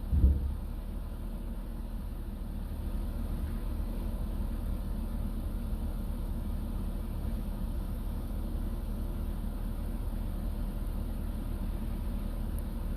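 A steady low mechanical hum, like a motor or engine running, with a short low thump just after the start.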